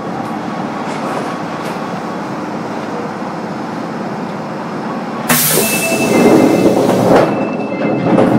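Onboard running sound of an Osaka Metro 10A series subway train with Hitachi IGBT-VVVF drive: a steady rumble of the train in motion. About five seconds in, a sudden, much louder rush of noise with thin high tones starts and eases off near the end.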